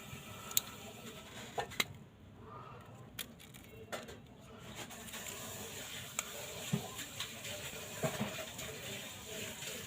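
Scattered light clicks and taps of small phone parts and tools being handled on a repair bench, a dozen or so at uneven intervals.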